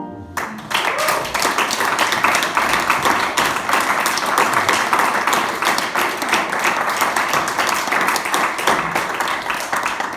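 Audience applause: many hands clapping at a steady level, breaking out just as the last sung note and piano chord end.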